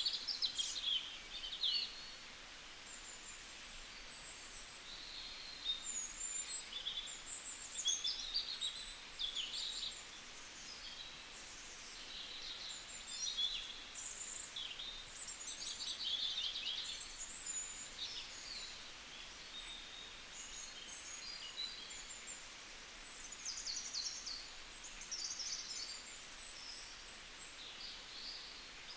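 Several wild birds chirping and singing, short high calls and trills overlapping one another over a faint steady background hiss.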